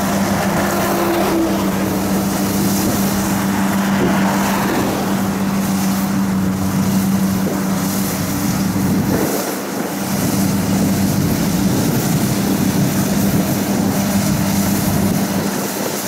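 Kubota DC70 rice combine harvester's diesel engine running steadily at a constant pitch, under a broad rushing mechanical noise. The low end dips briefly a little past the middle.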